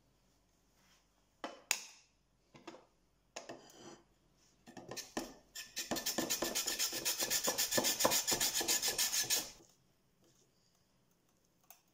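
A few knocks, then a raw potato grated finely on a handheld julienne slicer: quick, even rasping strokes, about eight a second, for some four seconds, then they stop.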